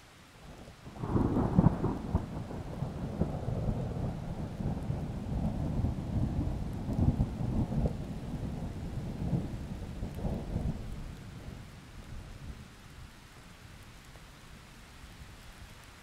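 A roll of thunder breaks about a second in and rumbles deep and low, with several louder peaks, then fades away over the last few seconds. Steady rain falls underneath it.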